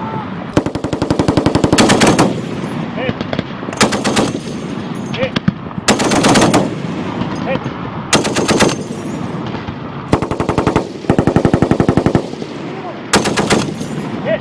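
Belt-fed machine guns, an M240 medium machine gun and an M2 .50 cal heavy machine gun, firing short bursts of automatic fire. There are about seven bursts, the first and longest lasting about a second and a half, with quieter gunfire between them.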